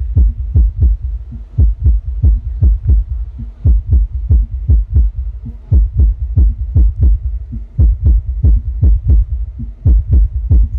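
Large outdoor PA sound system, its subwoofers playing a loud, bass-heavy beat during a sound test: deep kick-drum thumps, about three to four a second.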